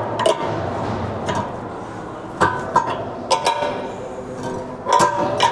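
Irregular metallic clinks and knocks, each ringing briefly, as the carbide tray of a calcium carbide acetylene generator is tightened down on both sides to seal it against gas leakage.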